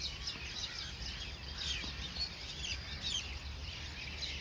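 Many small birds chirping in quick, overlapping calls, over a steady low background hum.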